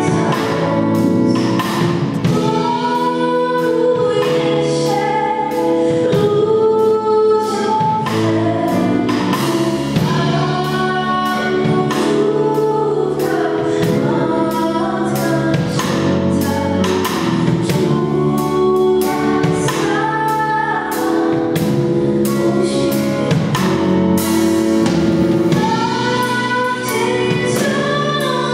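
A Christmas carol (kolęda) sung live with amplified vocals: a woman singing lead into a microphone, joined by other voices, over instrumental accompaniment with a steady beat.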